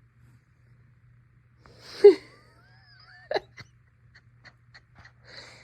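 A pet's short, loud sneeze-like snort about two seconds in, followed by a few sharp clicks and ticks and a second, softer snort near the end.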